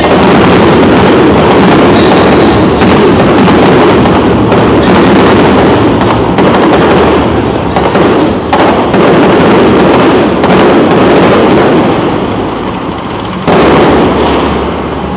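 Aerial fireworks show: shells bursting in quick succession in a dense, very loud barrage of bangs and crackle. It eases off briefly about twelve seconds in, then another loud volley hits.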